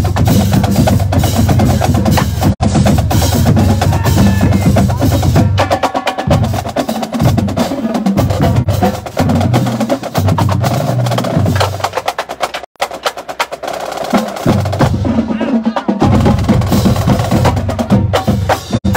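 College marching band playing a loud tune in the stands, with wind instruments over a drum line. The playing breaks into short, punchy phrases through the middle.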